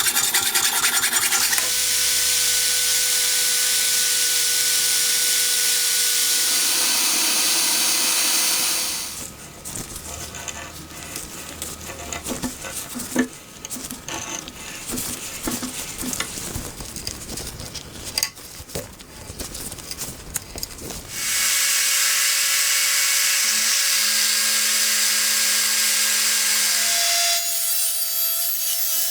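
A small power tool runs steadily as it works a metal lighter. About nine seconds in it stops, and a stretch of quieter hand scraping, rubbing and clicks follows. The tool starts again about twenty-one seconds in.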